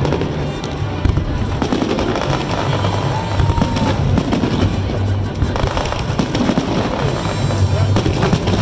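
Fireworks bursting in quick succession, with many bangs and crackles, over music with a deep bass line.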